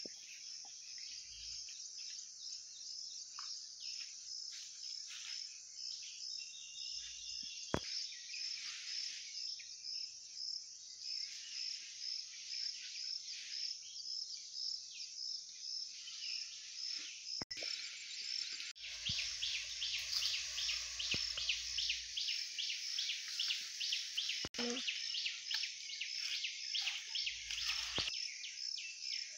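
Insects chirping in a high, even, pulsing rhythm, about two chirps a second, turning faster and louder a little past halfway.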